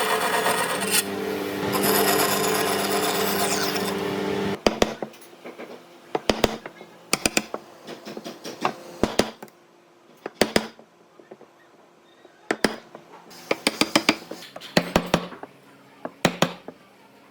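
A power tool runs steadily and stops about four and a half seconds in. Scattered sharp knocks and taps follow, mostly in quick clusters, from tools working on wood.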